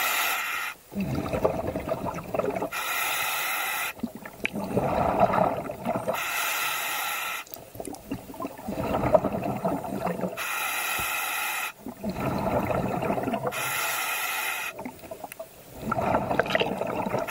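Scuba diver breathing underwater through a regulator: a hissing inhale followed by a bubbling exhale, repeated about every three and a half seconds.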